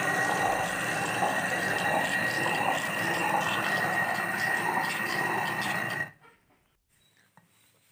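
Hand-turned stone quern (chakki) grinding dried urad beans: a steady, rough grinding of stone rubbing on stone that stops suddenly about six seconds in.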